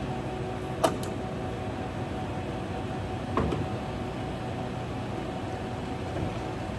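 Colchester 25 engine lathe running under power, its headstock gearing giving a steady hum with a faint whine. A sharp click sounds about a second in and a short knock about three and a half seconds in.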